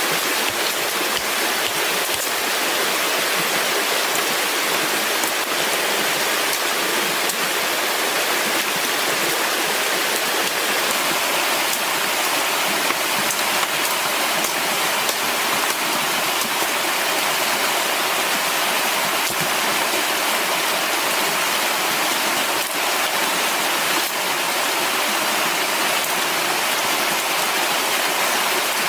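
Fast mountain stream running over rocks with white water, a steady loud rushing.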